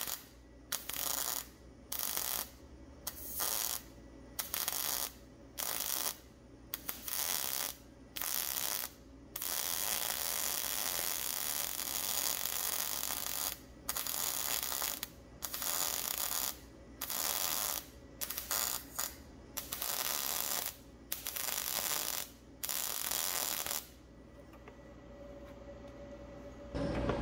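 MIG welding arc from a YesWelder Firstess MP200 crackling on 14-gauge mild steel, laid down as a dirty weld. It comes in short bursts about a second apart, then a steady run of about four seconds, then more short bursts. It stops about 24 seconds in. The welder was spotting the bead back after it blew out.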